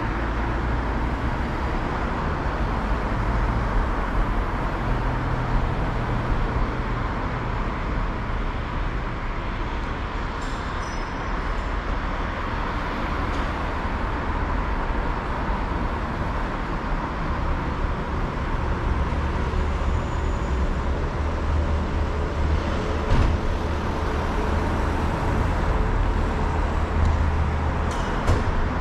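Steady low rumble of motor vehicles and road traffic, growing somewhat heavier in the second half, with a faint steady high hum over it and no siren sounding.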